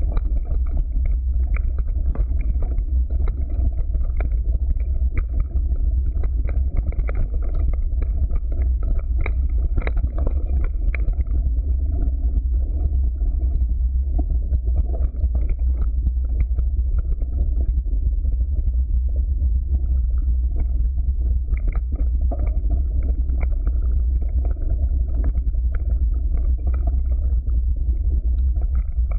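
Mountain bike riding down a dirt trail, heard from a camera mounted on the bike: a steady low rumble of wind and tyre noise, with frequent rattles and knocks as the bike jolts over bumps.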